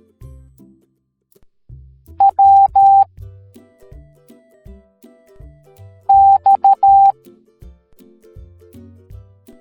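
Morse code beeps: a loud, steady high tone keyed in short and long pulses, in two groups about four seconds apart, each spelling one letter of the alphabet. Underneath is light background music with bass and keyboard notes.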